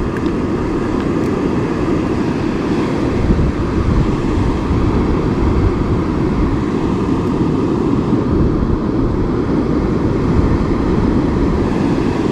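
Steady wind rumble buffeting the microphone, a loud, irregular low roar that runs without a break.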